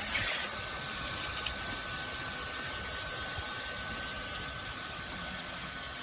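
Geomembrane welding machine running steadily: an even mechanical hum with a thin, steady high whine, and a brief louder burst of noise at the very start.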